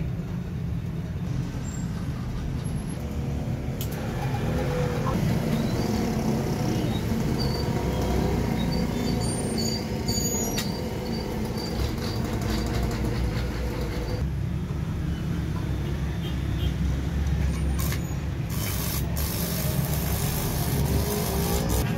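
Steady low rumble throughout. Near the end, the crackling hiss of a stick-welding arc from a home-built 80 amp transformer welder starts up.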